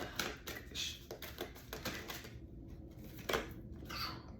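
Tarot cards being handled, heard as a run of light, irregular clicks and rustles of card stock with a slightly sharper click about three seconds in.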